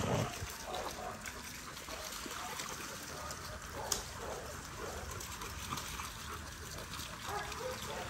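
Water trickling and lightly splashing in the dogs' pool, a steady wash broken by scattered small clicks, one sharper click about four seconds in.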